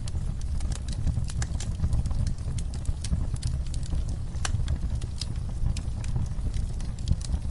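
Wood fire burning in a fireplace: a steady low rumble of flames with irregular crackles and pops.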